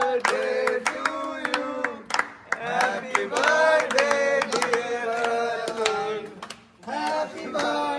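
A group of young men singing together in held notes while clapping along, with two brief pauses.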